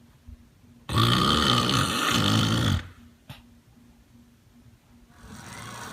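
One loud, rasping snore lasting about two seconds, starting about a second in.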